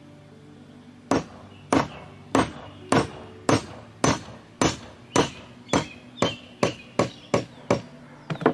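Mallet blows on a large bolt used as a drift, driving the wrist pin and its plugs out of a compressor crosshead: about fifteen sharp strikes in a steady series that quickens slightly toward the end.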